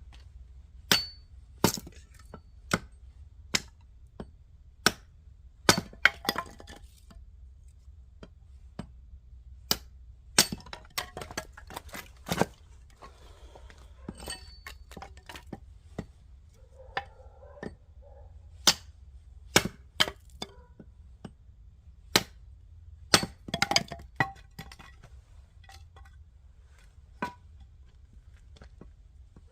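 Oak firewood being broken apart: sharp, irregular cracks and snaps of splitting wood, one or two a second, some louder than others.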